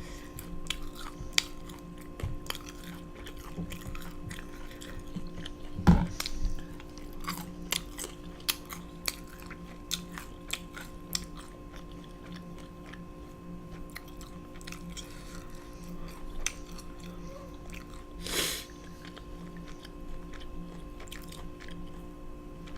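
Close-miked chewing and biting of food, with scattered small wet clicks and crunches. A heavier knock comes about six seconds in and a short breathy rush near the end.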